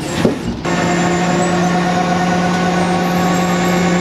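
Steady drone of a running truck engine, from what appears to be a flatbed tow truck. It cuts in suddenly about half a second in, after a brief sharp knock, and then holds an even pitch.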